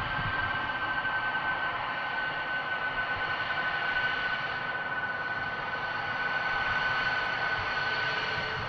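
Lockheed Martin F-22 Raptor taxiing, its twin Pratt & Whitney F119 turbofans running at taxi power: a steady jet rush with a high whine that sinks slightly in pitch.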